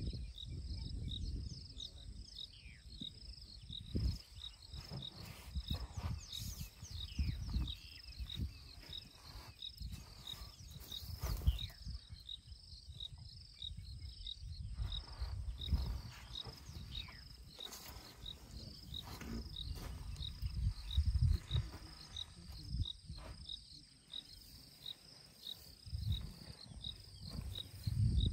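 Insect chirping steadily, high-pitched, about two chirps a second, with uneven low noise coming and going underneath.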